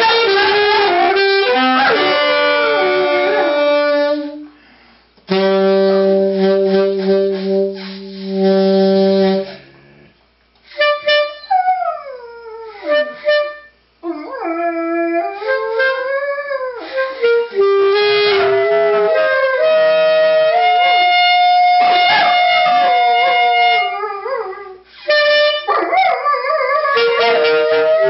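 A saxophone playing long held notes while a golden retriever howls along, its howls sliding up and down in pitch between and over the notes.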